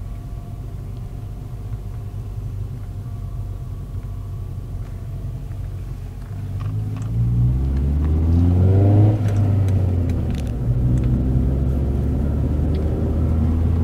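Car engine and road noise heard from inside the cabin. About six seconds in, the engine picks up and its pitch rises as the car accelerates, then it eases back just after the middle and runs on steadily.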